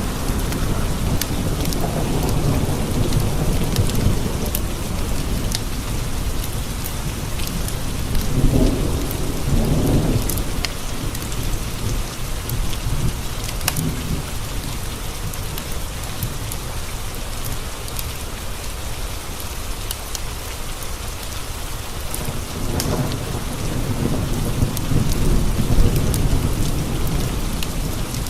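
Steady rain with thunder rolling low three times: at the start, about eight seconds in, and again from about 23 seconds. Scattered sharp ticks sound through the rain.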